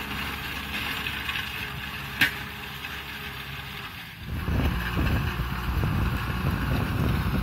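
Kubota M6040SU tractor's four-cylinder diesel engine running steadily under load while pulling a disc plow through the soil. It gets louder and fuller from about four seconds in, and there is a single sharp click a little after two seconds.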